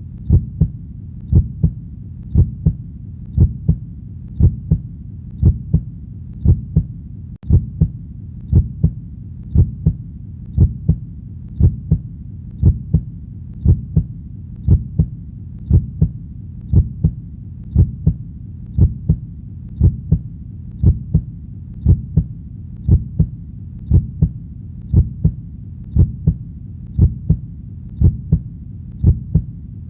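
Heartbeat: a steady rhythm of low double 'lub-dub' thumps, about one beat a second, over a continuous low hum.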